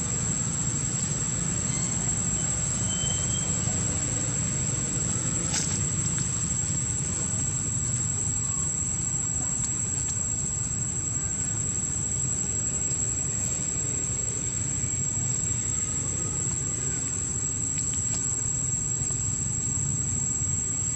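A steady, high-pitched insect drone over a low background rumble, with a couple of faint clicks.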